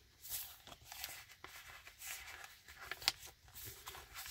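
Faint rustling and handling of a handmade junk journal's paper and cardstock pages as a page is turned, with one sharper tap about three seconds in.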